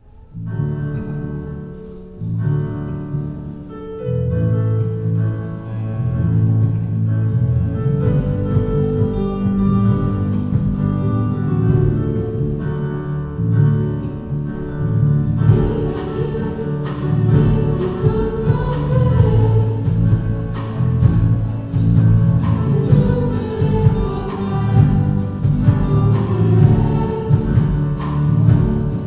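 Live pop worship band playing a song: keyboard and electric bass with singing voices, and a drum kit coming in about halfway with a steady beat.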